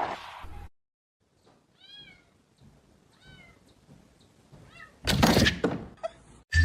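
A cat gives short, soft meows, two clear ones a little over a second apart and a fainter third, each rising then falling in pitch. The loudest sounds are two noisy thumps, one fading just after the start and one about five seconds in.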